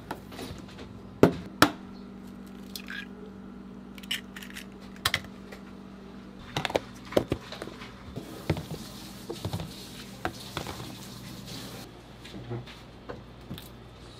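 Plastic food containers and eggs being handled on a stainless-steel counter: scattered sharp clicks and knocks, the loudest two close together about a second and a half in, over a steady low hum.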